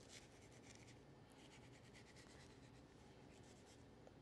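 Faint, crisp scraping of a kitchen knife slicing the white ribs and seeds out of red bell pepper strips against a wooden cutting board: a run of short strokes.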